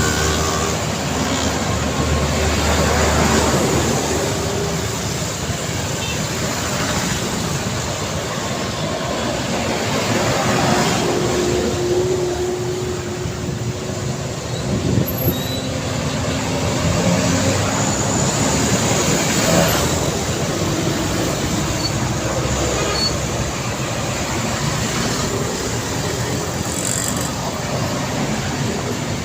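Busy road traffic: a steady stream of passing vehicles, cars and trucks, their engine hum and tyre noise swelling and fading as each goes by.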